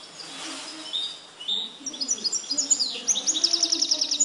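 European goldfinch singing, a quick run of twittering chirps and slurred notes that ends in a fast, even trill of about a dozen notes. The bird has been schooled in the 'limpio' (clean) song style.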